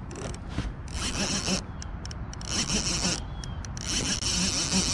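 Rubbing and scraping against a body-worn action camera, with scattered soft knocks.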